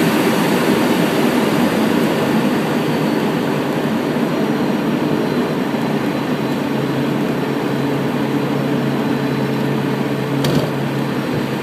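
Aircraft cockpit noise through touchdown and landing rollout: engine and rushing air as a loud, steady rumble that eases slightly as the plane slows. A steady low hum comes in about halfway, and there is a short click near the end.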